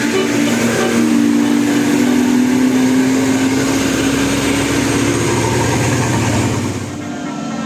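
Large bus engine running under load, a loud drone that rises slightly in pitch for several seconds, then eases off near the end.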